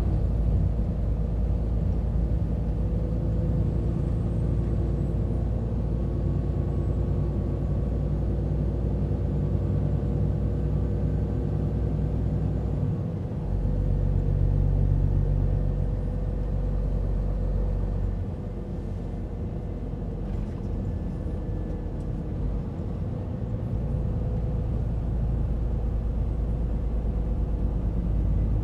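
Scania timber truck's diesel engine running under way, a deep steady drone. It swells for a couple of seconds about halfway through, drops lower for several seconds, then picks back up.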